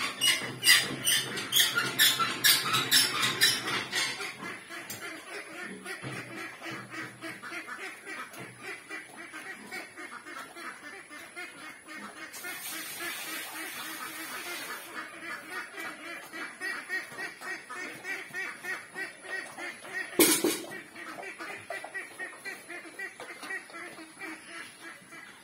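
Duroc pig grunting as it feeds with its snout at the floor: a steady run of short sounds, busier in the first few seconds, and one louder call about twenty seconds in.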